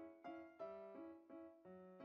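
Soft background piano music: a steady run of single notes, about three a second.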